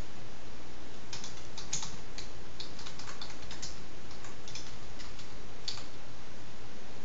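Typing on a computer keyboard: irregular, unevenly spaced keystrokes, most of them between about one and six seconds in, over a steady low hum and hiss.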